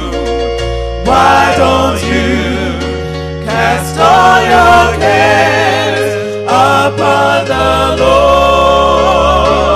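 Gospel music: a voice sings long notes with vibrato over held chords and a bass line that moves in steps.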